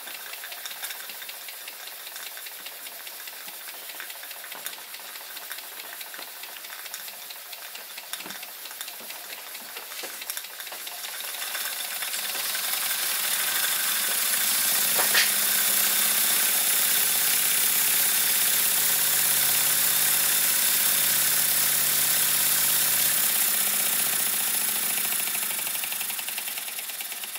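Stuart S50 model horizontal steam engine running on steam from a small vertical boiler, its exhaust hissing with a light mechanical rattle. It is quieter at first, gets louder after about eleven seconds and holds steady, then quietens near the end; it runs very smooth.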